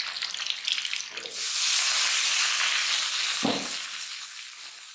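Food frying in a hot pan. The sizzle surges about a second in and then slowly dies away, with one dull knock near the middle.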